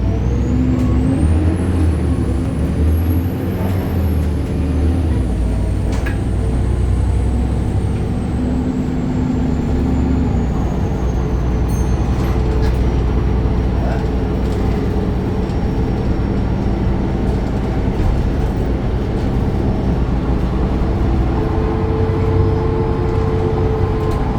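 BredaMenarini Avancity Plus city bus running on its Deutz Euro 5 diesel engine with ZF gearbox, a steady low rumble. Over it a high whine rises during the first few seconds, then falls slowly and fades out about halfway through.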